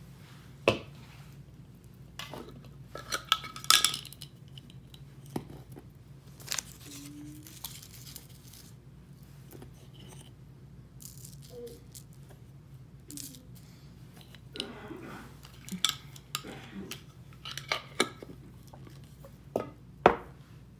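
Scattered clinks, taps and knocks of small jars, bottles and utensils handled on a stone countertop, with a few sharp knocks standing out, the loudest near the end.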